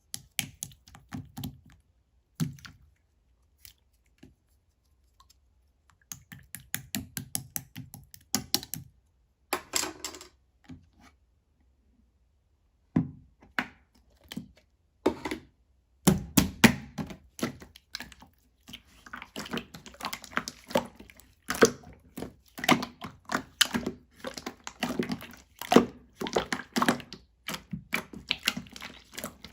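Purple slime being poked, squeezed and stretched by hand, giving sticky, wet clicks and pops. The clicks come in scattered bursts with silent pauses at first, then in a dense run from about halfway through.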